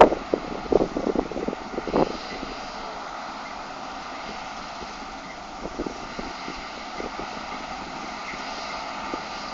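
New Holland TX68 combine harvester running steadily at work, a continuous engine and machinery drone. Irregular knocks and bumps fill the first two seconds before it settles into an even sound.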